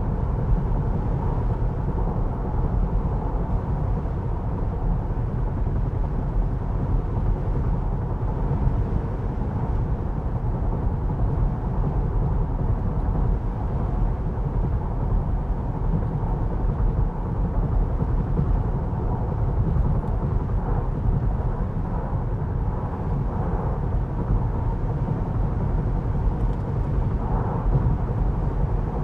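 Road and tyre noise inside the cabin of a 2023 Jeep Grand Cherokee L while driving: a steady low rumble.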